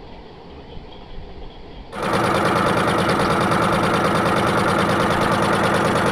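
A boat engine running steadily with a fast, even chugging, heard from on board. It is faint and muffled for the first two seconds, then abruptly much louder and brighter.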